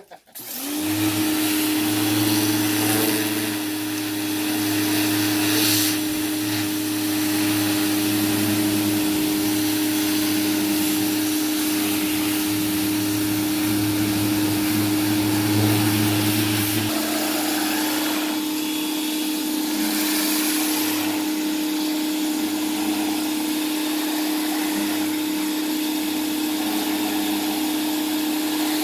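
Pressure washer running with a steady hum and the hiss of its wand spraying water; it comes back on right at the start after a brief cut-out.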